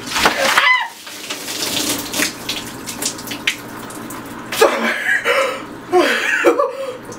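A bucket of ice water is dumped over a person's head and splashes down into a shower, with a short squeal as it hits. Water then runs and drips off her, and in the second half she cries out several times from the cold.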